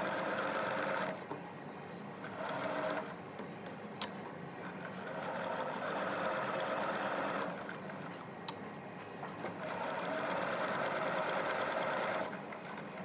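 Electric sewing machine stitching in four runs of one to three seconds each, stopping and starting again between them. A sharp click sounds in two of the pauses.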